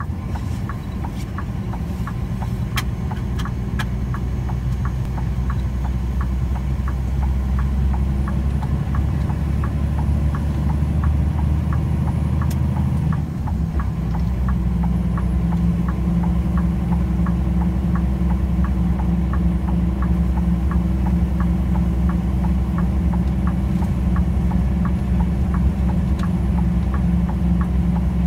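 Car driving on a concrete test track: steady engine drone and road noise, with regular ticks of the tyres crossing the joints between the concrete slabs, about two a second. The engine sound dips briefly about halfway through, then holds a steadier note.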